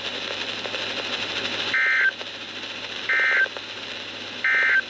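Emergency Alert System End-of-Message data signal: three short, identical bursts of warbling digital tones about a second and a half apart, over steady radio hiss. It marks the end of the severe thunderstorm warning broadcast.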